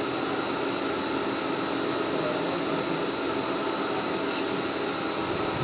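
CNC vertical machining centre milling a part under flood coolant: the cutter and spindle run steadily with a high-pitched whine over the hiss of coolant spray.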